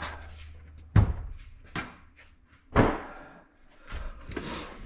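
A few sharp knocks and thumps with some scuffing, the loudest about a second in, from parts being handled and moved about inside a car's cabin.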